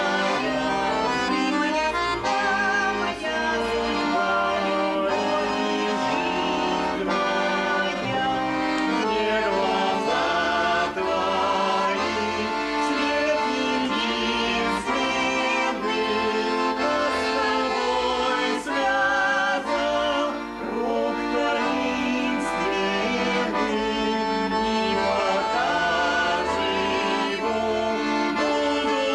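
Accordion music playing a lively folk tune, with a singing voice weaving through it.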